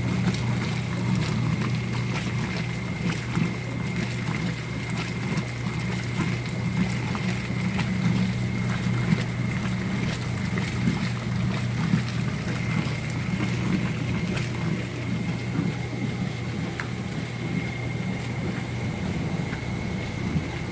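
Brastemp Super Luxo washing machine running on a test wash after a light refurbishment: a steady motor hum with a thin, steady high whine and scattered light clicks.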